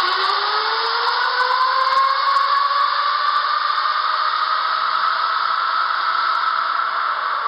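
Go-kart engine accelerating out of a corner, its whine climbing in pitch over the first few seconds and then holding steady at high revs, over a constant hiss.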